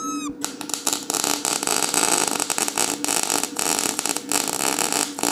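CO2-shielded MIG welding arc running with the wire feed speed turned too low: an irregular, uneven crackling and sputtering with frequent breaks, starting about half a second in. The wire cannot feed fast enough and burns back each time it touches the plate, throwing spatter instead of a steady arc.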